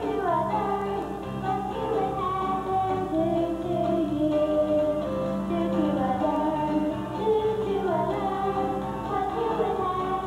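Young girls singing a song into microphones, with held, gliding notes over an instrumental accompaniment.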